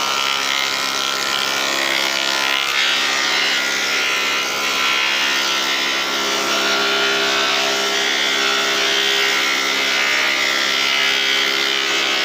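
A four-way woodworking machine running steadily, its motor giving a constant hum of several steady tones under a dense cutting hiss.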